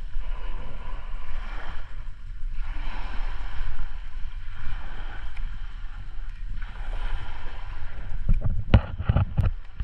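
Wind rumbling on the microphone, with a hissing wash like sea surf that swells and fades every second or two. A few sharp knocks near the end, like the camera being handled.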